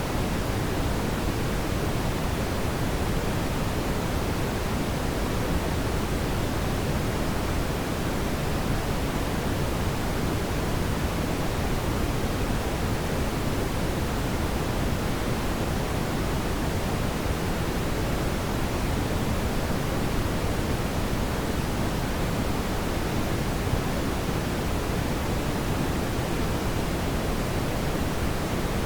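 Steady brown noise: an even, deep rushing hiss, heaviest in the low end and falling off toward the top, without any change.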